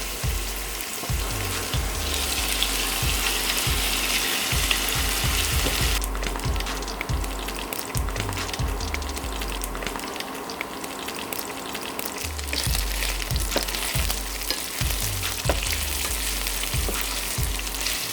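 Food sizzling in hot oil in a frying pan. The hiss is strongest for the first few seconds, then quieter, with frequent short scrapes and clicks of a utensil stirring the pan.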